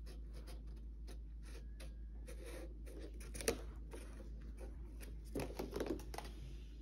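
A cat nosing at a clear plastic pastry clamshell, giving irregular crinkles and light clicks of the plastic. The sharpest click comes about halfway through, and a short cluster of louder crinkles follows near the end.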